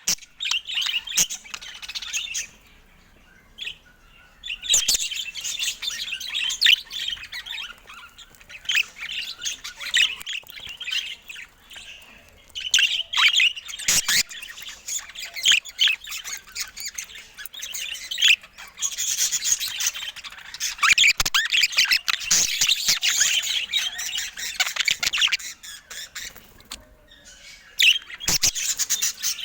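Budgerigar chattering and warbling: long runs of rapid, high chirps and squawks broken by short pauses.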